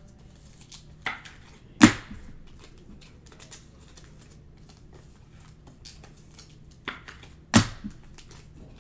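Trading cards and card packs being handled at a table: faint rustling and crinkling, with two sharp knocks about six seconds apart, each following a lighter tap.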